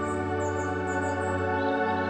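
Background music of held, organ-like chords.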